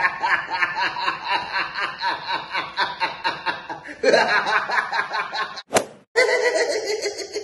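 A person laughing in quick, rhythmic snickering pulses, about four a second. About four seconds in the laugh changes to a different style, and after a brief break with a click near the end another laugh starts.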